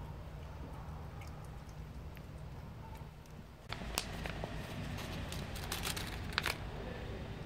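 A cat eating from a plastic bowl, chewing kibble with small scattered crunching clicks over a steady low hum. A little under four seconds in, the background gets louder and a few sharp clicks and taps follow.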